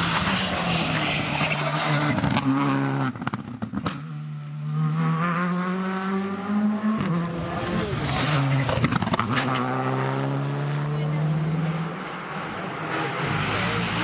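Rally car engines at full throttle. A burst of sharp cracks and cut-outs comes about three seconds in, then an engine pulls hard with its pitch climbing, breaks briefly for an upshift, and climbs again.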